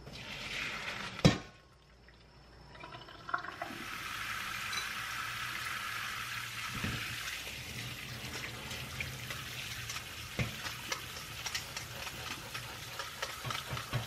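Tap water running steadily onto noodles in a stainless steel colander in a steel sink. A single sharp metal knock comes about a second in, and light clicking and rattling from the noodles being stirred is heard near the end.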